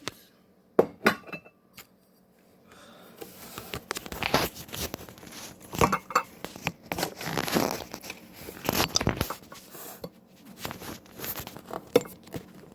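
Kitchen clatter as a cooking pan and dishes are handled: sharp knocks and clinks, with a busier stretch of rattling and rustling through the middle.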